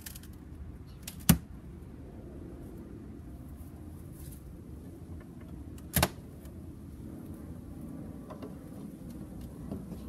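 Two sharp knocks, several seconds apart, of a hive tool prying and tapping at the wooden boxes and cover of a beehive, over a steady low hum.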